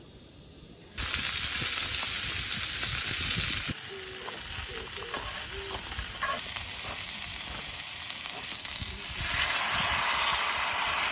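Meat sizzling as it fries, a steady hiss that starts suddenly about a second in and changes loudness abruptly twice.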